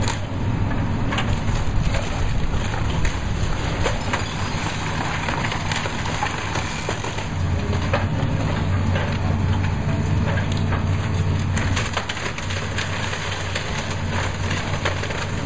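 Diesel engine of a Volvo high-reach demolition excavator running steadily while its attachment tears into brick walls and timber floors, with repeated cracks, crunches and falling rubble. The engine grows louder about halfway through.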